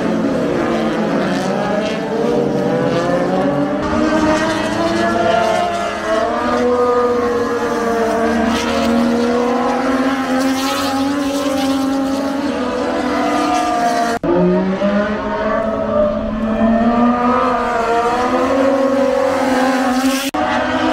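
Racing motorcycle engines at high revs as bikes lap the circuit, the engine note climbing and falling as they accelerate and brake. About 14 seconds in the sound breaks off abruptly and another bike's engine takes over.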